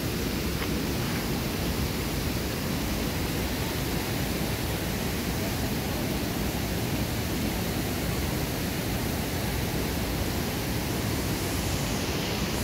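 Steady rushing of fast-flowing creek water.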